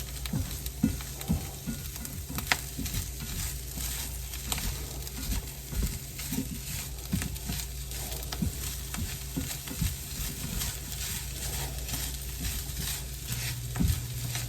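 Riced cauliflower and chopped steak sizzling in a hot skillet as they are stirred together, with irregular scrapes and taps of the utensil against the pan.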